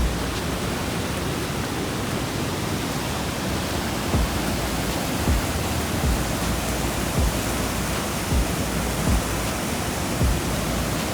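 Waterfall rushing steadily, with a few brief low thumps scattered through it.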